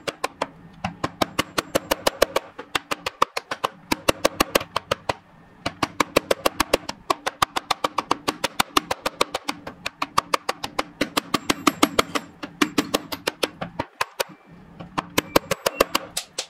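Background music with a steady clicking percussion beat, about four beats a second, over sustained instrumental tones, with a couple of short breaks.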